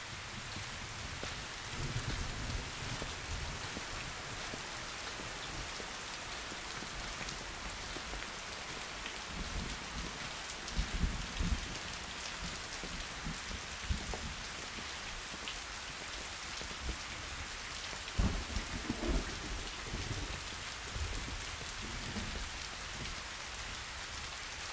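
Steady rain falling, with occasional low rumbles and thuds, the strongest a little past the middle and again about three-quarters of the way through.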